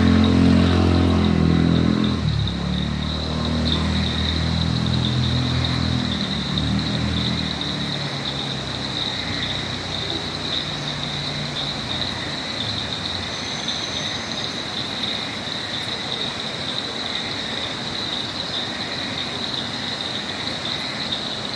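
Insects keep up a steady high-pitched trill throughout. A motor vehicle's engine is heard near the start and fades away over the first eight seconds or so.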